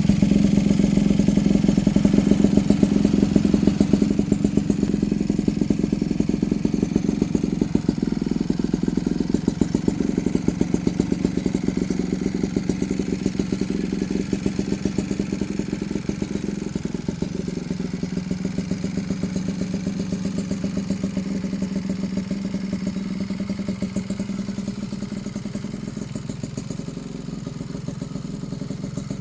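Yamaha Chappy LB80 moped's two-stroke engine idling through an aftermarket tune pipe exhaust, a steady, rapid, even exhaust pulse that slowly gets a little quieter.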